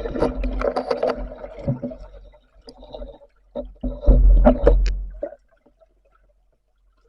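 Two long, rasping breaths through a diver's snorkel, each with a droning tone, about two seconds apart.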